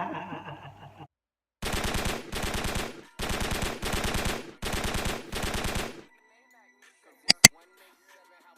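Five loud bursts of rapid-fire crackling, each about a second long, followed near the end by two sharp clicks.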